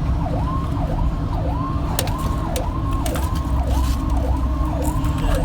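Fire engine's siren in a fast yelp, sweeping up and down about twice a second, heard from inside the cab over the steady low rumble of the truck's engine and road noise, with a few sharp clicks.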